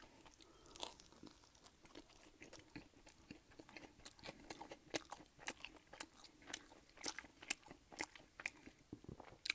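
Close-miked chewing, with soft crunches and wet mouth clicks coming a few times a second.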